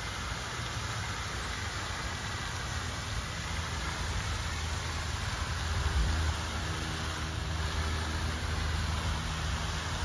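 Steady rushing hiss of a pond fountain's spray falling back onto the water, joined about halfway through by a low, steady engine-like hum.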